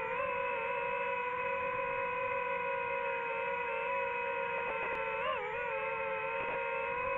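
DJI FPV drone's propellers and motors whining steadily in flight, the pitch dipping and wavering briefly about five seconds in.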